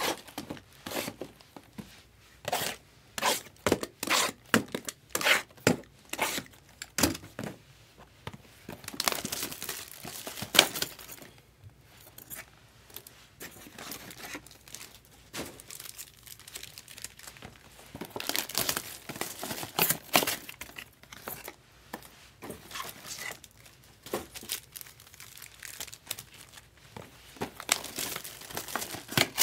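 Foil wrappers of 2024 Bowman Chrome trading card packs being torn open and crinkled by hand, in quick irregular crackles that are busiest in the first ten seconds and come in shorter spells later.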